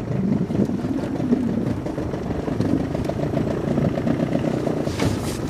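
Small boat motor running steadily at low speed, pushing a flat-bottom boat. A few sharp sounds come near the end.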